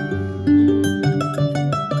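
Kora playing: quick runs of overlapping plucked-string notes over a lower bass line.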